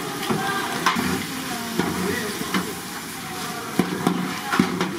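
Fish cakes frying in hot oil, a steady sizzle, with about five sharp clicks and knocks spread through it. Voices murmur faintly underneath.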